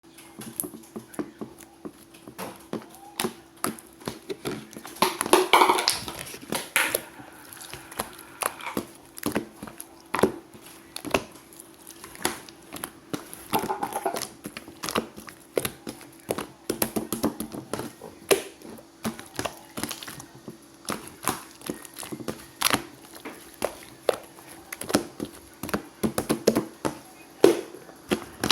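Slime being squished, pressed and stretched by hand, giving a dense, irregular run of wet clicks and small air-bubble pops, with a few longer squelches. A faint steady hum runs underneath.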